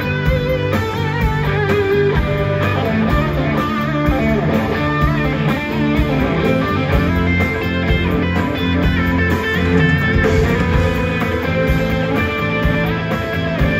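Live blues-rock band playing an instrumental passage: electric guitar to the fore with wavering, held notes, over bass and drums, recorded on a phone.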